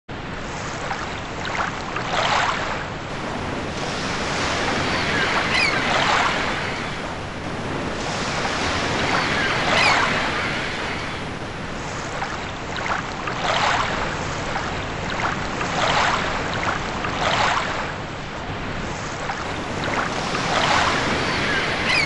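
Open-ocean waves splashing around a small ocean rowing boat, with wind buffeting the microphone; the splashing surges louder every few seconds.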